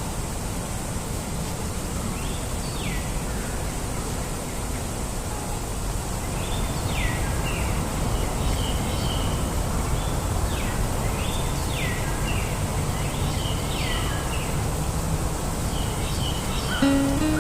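Birds calling in a series of short, downward-sliding calls over a steady low outdoor rumble. Acoustic guitar music begins near the end.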